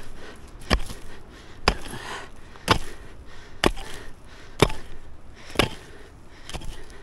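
Steady chopping blows into wood, about one a second.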